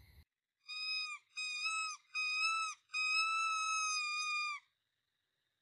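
Four high whistled squeals of a hunter's call meant to draw in a fox: three short and one longer, each dipping in pitch at its end.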